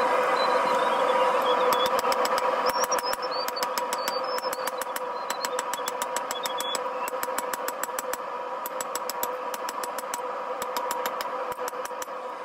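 A hand hammer striking red-hot rebar on an anvil: a fast run of blows, about three or four a second, starting about two seconds in and stopping just before the end. Under them the steady drone of a gas forge burner.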